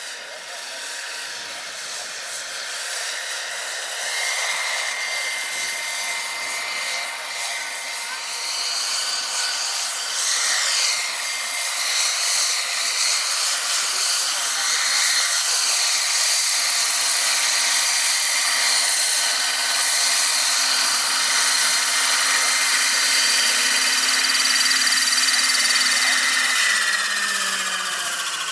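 Electric scale model Eurocopter EC-135 helicopter with a rotor about 1.6 m across, its electric motor and rotors whining and growing louder as it comes in close and lands. Near the end the whine falls in pitch as the rotor spools down.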